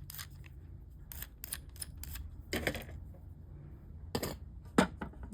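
A series of light clicks and taps, irregularly spaced, from a metal cutting die and cutting plate being handled on a craft table.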